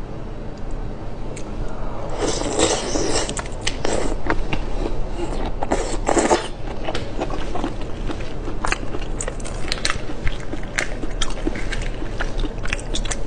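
Close-up eating of red shrimp: wet sucking and slurping at about two and six seconds in as the shrimp meat is drawn into the mouth, with chewing, then a run of small sharp crackles as a shrimp's shell is pulled apart by hand near the end.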